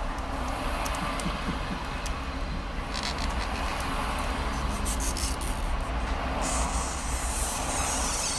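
Steady rumble and hiss of motorway traffic passing, with a few faint small clicks of handling.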